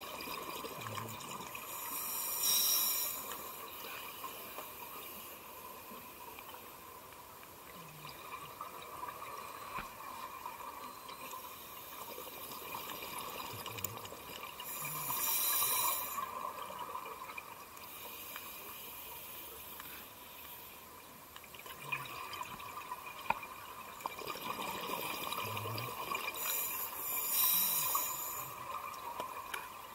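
Scuba diver's exhaled breath bubbling out of a regulator, heard underwater: three bursts of bubbles about twelve seconds apart, a few seconds in, about halfway and near the end, over a steady faint hum.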